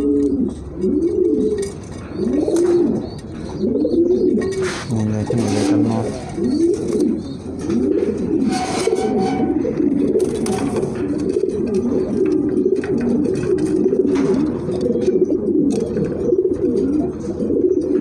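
Domestic pigeons cooing in a loft: low, repeated rising-and-falling coos about once a second, with several birds overlapping more densely in the second half. Scattered light clicks and rustles run underneath.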